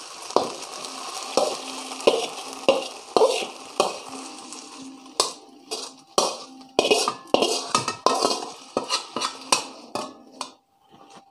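Metal spatula scraping and knocking against a metal wok in quick, irregular strokes as fried kuey teow noodles are pushed out onto a plate; the strokes stop near the end.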